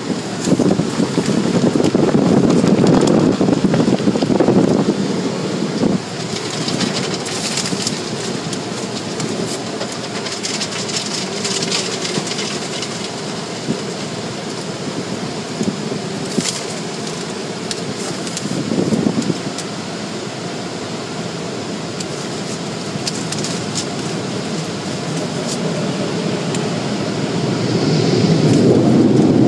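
Automatic car wash machinery heard from inside the car's cabin: a steady rushing of water spray and wash equipment over the car. It is louder for the first few seconds and swells again near the end.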